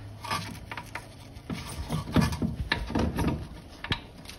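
Irregular clicks, knocks and scraping of metal suspension parts as an adjustable rear camber arm is levered up and its bolt worked into place, busiest in the middle.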